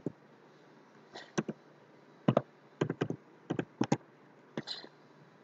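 Computer keyboard being typed on: a string of separate, irregularly spaced keystrokes.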